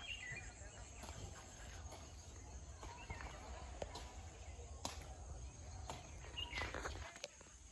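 Quiet outdoor ambience: a few short falling bird chirps, one just after the start and one about six and a half seconds in, over a steady low rumble, with a couple of sharp clicks in the middle.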